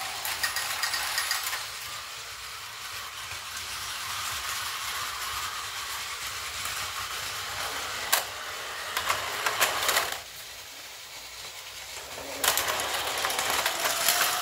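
Plarail battery-powered toy train set running: a steady whirring rattle of a small motor and plastic wheels on plastic track, with a few sharp clicks around eight to ten seconds in. It goes quieter for a couple of seconds near ten seconds, then picks up again near the end.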